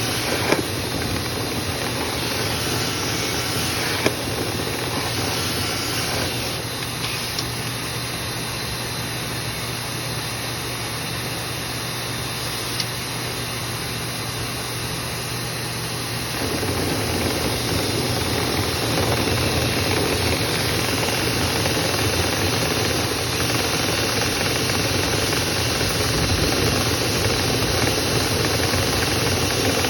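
Dryer vent cleaning equipment running steadily, a machine hum with hiss and a few short knocks. It grows louder and fuller about sixteen seconds in.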